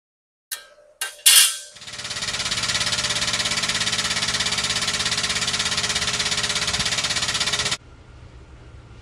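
Strongway 50-ton air-over-hydraulic shop press. After a few sharp knocks, its air-driven pump runs with a loud, rapid, even pulsing and hiss for about six seconds, driving the ram to press a dimple die into an aluminum gas-tank baffle. It then cuts off suddenly.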